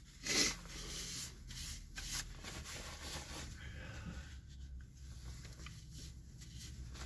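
Soft rustling and rubbing of a paper napkin being handled and wiped across the face, with one louder rustle near the start, over a low steady hum.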